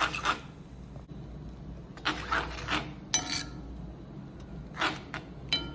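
A slotted spoon stirring vegetables in gravy in a kadai, scraping and knocking against the pan several times, with a couple of short clinks, over a low steady hum.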